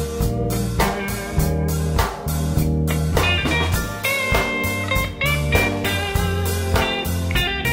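Live band rehearsal with no vocals: a steady drum beat and bass under guitar lines, with Hammond organ in the lineup.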